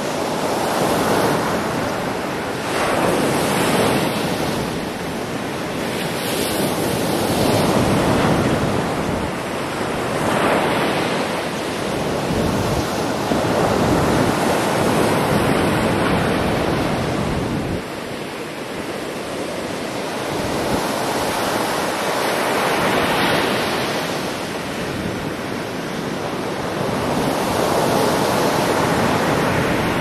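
Rough sea surf breaking on a sandy beach: a continuous wash of waves that swells and eases every few seconds as each breaker comes in.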